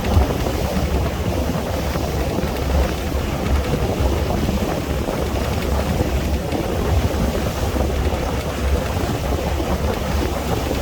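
Wind buffeting the microphone aboard a boat, over the steady rush of waves and water: a constant low rumble with noise on top.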